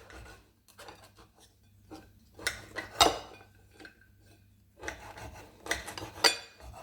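Knife dicing a slice of seeded wholegrain bread on a cutting board: short rasping saw strokes through the crust and knocks of the blade on the board, in irregular clusters with a pause a little past halfway.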